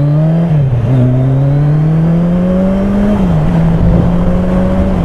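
Yamaha XJR1200's air-cooled inline-four engine pulling hard under acceleration. Its pitch climbs and drops sharply at two upshifts, about half a second in and about three seconds in, then holds roughly level.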